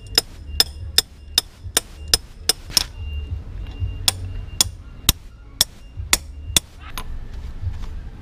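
Wrench used as a hammer, tapping a socket held against the crankshaft to drive a new timing gear onto a Honda TMX 155 (CG125) crankshaft. Sharp, ringing metal-on-metal strikes come about two or three a second, in two runs with a short pause about three seconds in.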